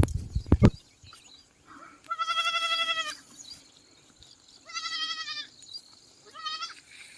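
A goat bleating three times, each call quavering. The first is the longest and the last is brief. A few sharp knocks come in the first second, louder than the bleats.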